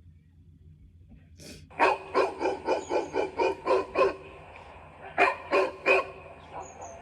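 A dog barking in quick runs: a rapid string of about nine barks, a short pause, then three more.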